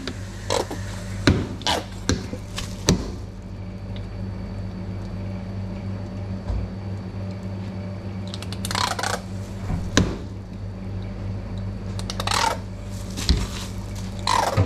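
Plastic squeeze bottle of sauce spluttering in a few rough squirts over nachos, among sharp clicks and knocks of bottles and hands on the plastic prep counter, over a steady low hum.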